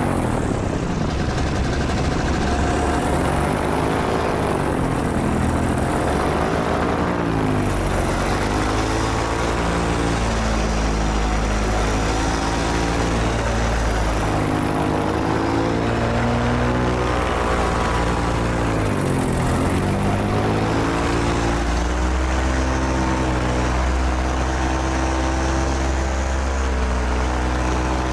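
Paramotor's Moster 185 single-cylinder two-stroke engine and propeller running in flight, its pitch dipping and climbing back several times as the throttle is eased off and opened again.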